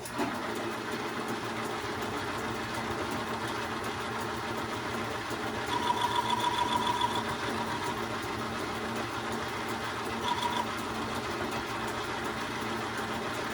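Metal lathe running with a steady hum while a boring bar takes a light cut inside a bore. A pulsing high whine comes in about six seconds in for two seconds, and again briefly near the end.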